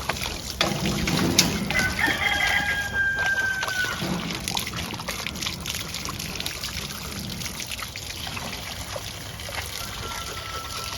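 A rooster crowing once, a long, nearly level call lasting about two seconds, with a fainter call near the end. Water runs from a hose underneath.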